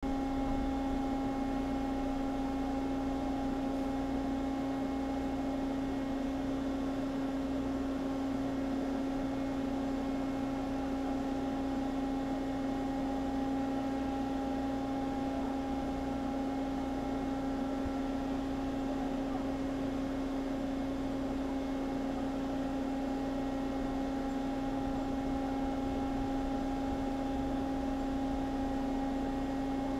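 Steady machinery drone: one constant mid-pitched hum with fainter higher tones over a low rumble, unchanging throughout.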